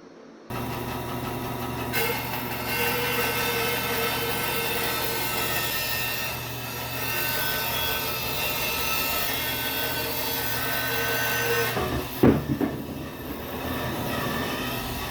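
Bandsaw running and cutting through a log, a steady motor hum under the blade's noise in the wood. The sound starts abruptly, becomes brighter about two seconds in, and a single loud knock comes near the twelve-second mark.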